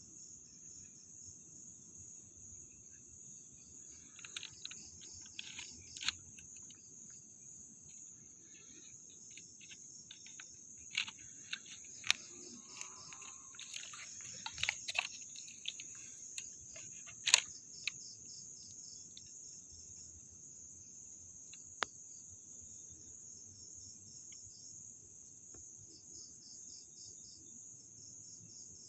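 Crickets trilling steadily at night, a high, finely pulsing chirr, with a scattered run of sharp clicks and taps through the middle.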